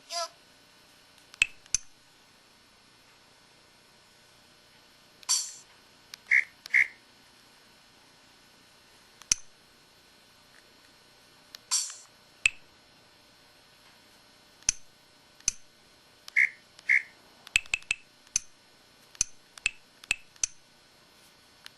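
Samsung SPH-X8500 mobile phone's key tones and effect sounds played one after another: short clicks, beeps and brief chirps, some in quick pairs, separated by short quiet gaps.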